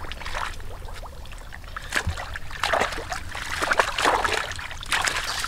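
Shallow muddy water sloshing and splashing in irregular bursts as a man wades and gropes through it with his hands. The loudest splashes come about four seconds in.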